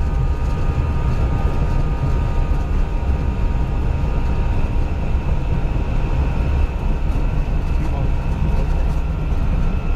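Airbus A320 engines and airflow heard inside the cockpit during takeoff: a steady, deep rumble with a faint, even whine of engine tones above it.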